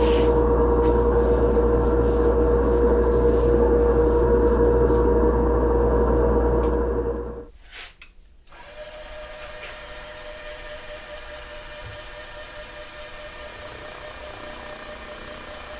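Electric power tool motor running steadily with a strong hum, cutting off sharply about seven and a half seconds in; a quieter steady hum carries on after it.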